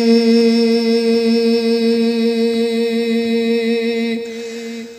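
A man singing a naat unaccompanied, holding one long, steady note that fades out about four seconds in.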